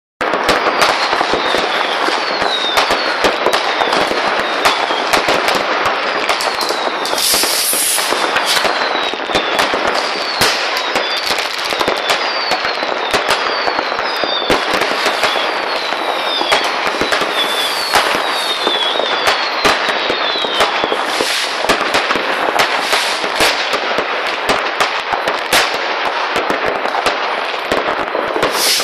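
Fireworks going off continuously: a dense, unbroken crackle of firecracker bangs and pops, with short high whistles falling in pitch about once a second through the first two-thirds, and a bright hissing burst about seven seconds in.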